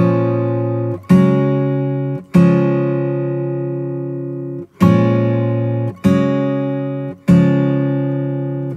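Background music: an acoustic guitar strumming a chord about every one to two seconds, each chord left to ring and fade before the next.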